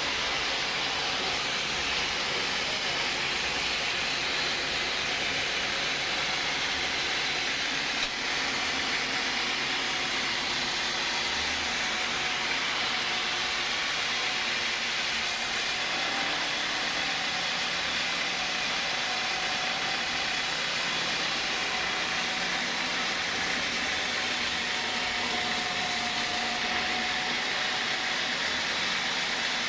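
Sawmill saw running steadily, a dense, even mechanical noise without pauses.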